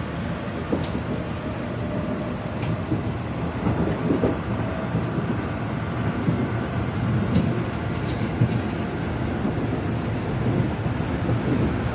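Seoul subway train running between stations, heard from inside the car: a steady rumble of wheels on the rails with a few faint clicks.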